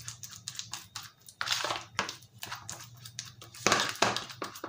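A fork mashing overripe bananas in a plastic bowl, in irregular squishing strokes, with a few louder ones about halfway and near the end.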